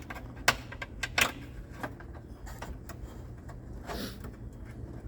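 Car window glass being worked up and out of the door: two sharp knocks about half a second and a second in, smaller clicks of metal and glass between them, and a short scraping swish about four seconds in, over a steady low hum.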